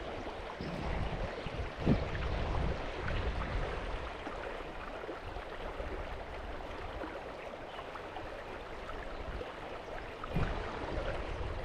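Creek water running in a steady rush, with a short knock about two seconds in and another near the end.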